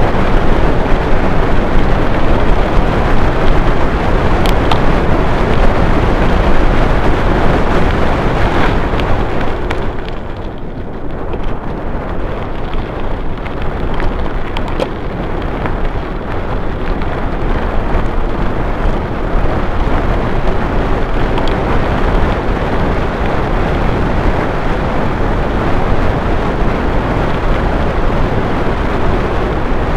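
Wind buffeting the microphone of a handlebar-mounted camera, with tyre rumble, as a bicycle rolls fast downhill; it eases for a few seconds about ten seconds in. A few sharp knocks from bumps.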